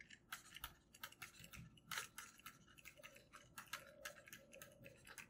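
Faint, irregular clicks and light scratches of a stylus tapping and stroking on a tablet screen during handwriting, several a second.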